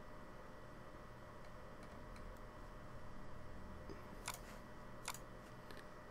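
Two sharp computer mouse clicks a little under a second apart, with a few fainter ticks, over a faint steady room hum.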